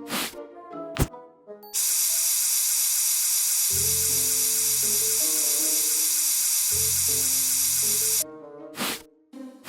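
A loud, steady hiss like a spray starts abruptly about two seconds in, holds for about six seconds, and cuts off sharply, over light background music.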